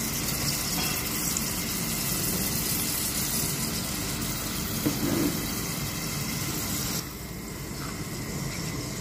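Bacon, button mushrooms and shallots frying in hot fat in a pan: a steady sizzling hiss that drops suddenly in level about seven seconds in.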